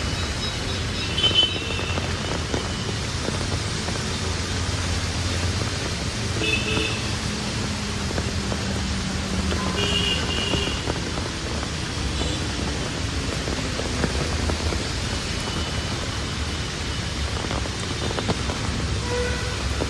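Steady hiss of rain with street traffic rumbling underneath, a vehicle passing in the middle, and a few short high chirps now and then.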